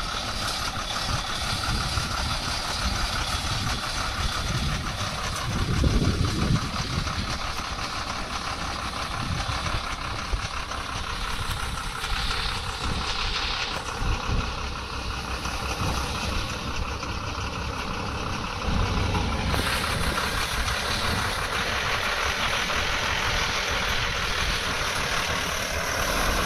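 Heavy multi-axle goods truck's diesel engine running as it drives past under load, with tyre and road noise.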